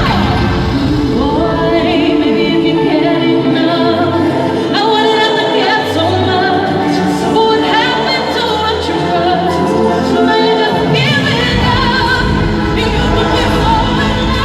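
Live concert music with singing, loud and continuous; the deep bass drops out about four seconds in and comes back near eleven seconds.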